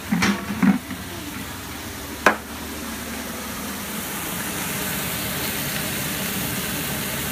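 Chicken sizzling as it sears in a hot frying pan, over the steady hum of a kitchen fan. A few short knocks in the first second and one sharp click about two seconds in, and the sizzle grows a little louder in the second half.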